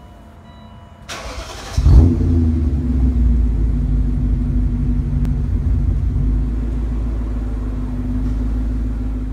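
BMW E39 M5's S62 V8 starting up: about a second of starter cranking, then it catches with a brief flare of revs about two seconds in and settles into a steady idle.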